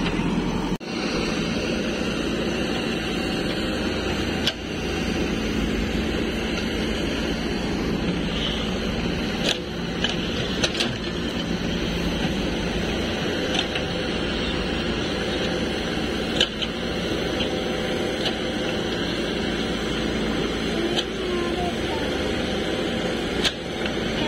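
JCB 3DX backhoe loader's four-cylinder diesel engine running steadily as it digs and loads, with a few sharp clicks or knocks.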